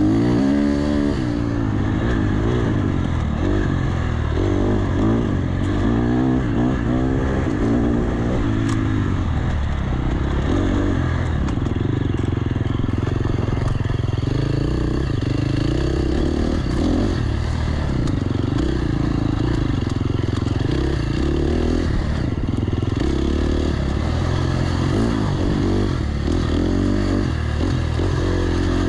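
Dirt-bike engine running under changing throttle on an enduro trail ride, its pitch rising and falling over and over as the rider works the throttle.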